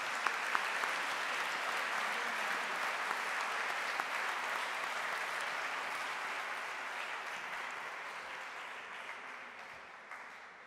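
Audience applauding, with a few single sharp claps near the start; the applause dies away over the last few seconds.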